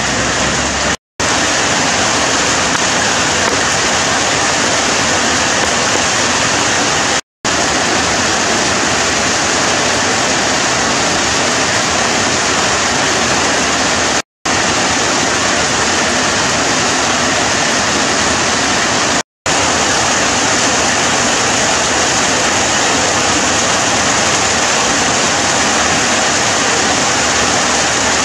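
Steady, even rushing noise, like running water, broken four times by brief gaps of silence.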